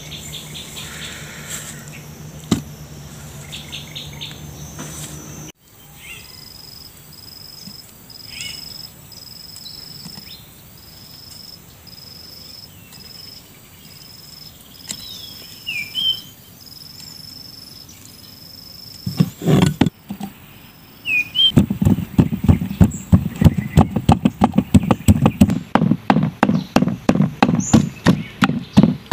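Wooden pestle pounding chillies and garlic in a clay mortar, dull regular thuds about three a second that start in the second half and are the loudest sound. Before that, a high call pulses evenly in the background.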